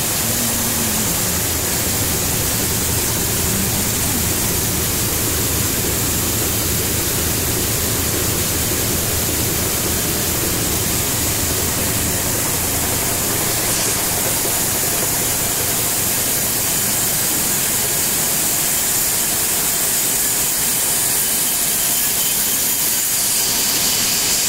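Chana roaster machine running: a steady, loud rushing noise from its fired drum and furnace, with roasted chana spilling out of the turning drum.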